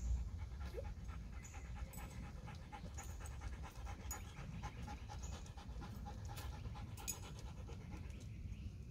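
A dog panting steadily.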